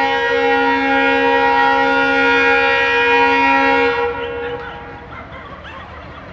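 ALCo diesel locomotive's air horn sounding one long blast, several notes at once, that cuts off about four seconds in and rings away briefly.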